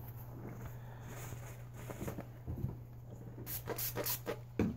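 Paper towel rustling and rubbing, wiping out engine parts, with a few short scrapes in the second half. A steady low hum runs underneath.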